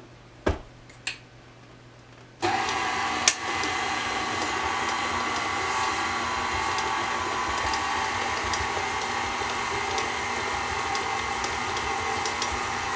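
A few light clicks, then about two and a half seconds in an electric stand mixer switches on and runs steadily on a smooth motor hum, its flat beater turning dry flour into creamed batter in a stainless steel bowl.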